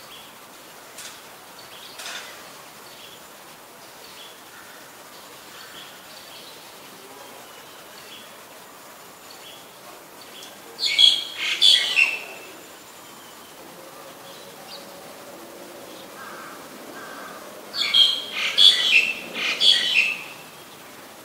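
Black-collared starling calling: faint scattered chirps, then a loud burst of calls about eleven seconds in lasting about a second, and a longer loud bout of several calls near the end lasting a couple of seconds.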